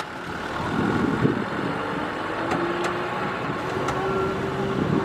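Kubota M6040SU tractor's four-cylinder diesel engine straining under load as it drags a loaded trailer through deep mud and water, its pitch climbing slowly from about a second and a half in. The tyres churn and splash through the mud.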